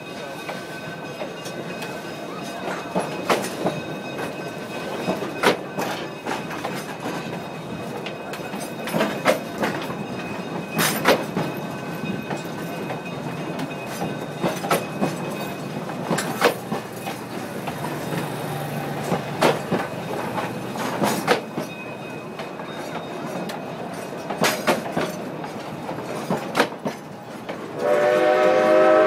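Durango & Silverton narrow-gauge train running on the rails, with a steady rumble and irregular clanks and clacks from the wheels over the track. Near the end the steam locomotive's whistle sounds loudly, several tones at once.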